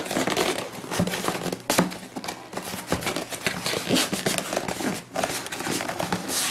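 Cardboard shipping box being handled and turned over on a table: a run of irregular knocks, taps and scrapes of cardboard against hands and tabletop.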